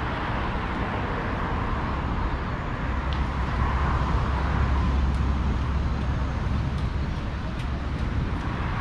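City street traffic: a motor vehicle passes close, its low engine rumble swelling from about three seconds in and easing off a few seconds later, over a steady wash of road noise.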